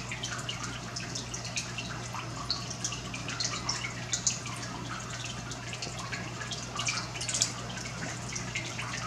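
Water dripping and trickling in an indoor turtle pond: a steady stream of small plinks and drops, over a steady low hum.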